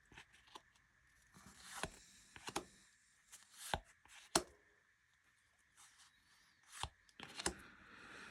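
Baseball trading cards being handled and laid down on a table: about six sharp taps of card on the tabletop, with faint sliding of card stock between them.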